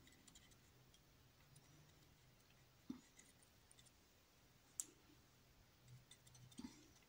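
Near silence: room tone with a few faint, sharp clicks, about three seconds in, near five seconds and near the end.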